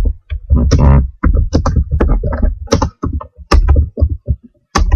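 Typing on a computer keyboard: a quick, irregular run of keystrokes, each with a dull low thump.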